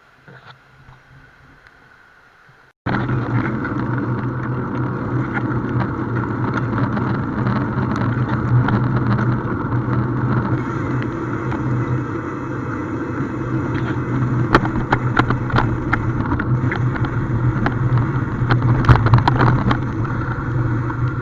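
Faint for about the first three seconds, then a sudden cut to a catamaran's engines running with a loud, steady drone and a low hum.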